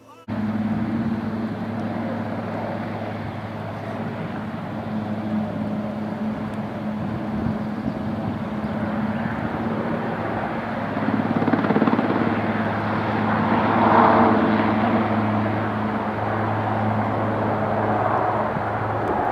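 Super Puma helicopter running close by in a low hover: a steady turbine hum with rotor noise, swelling a little louder past the middle.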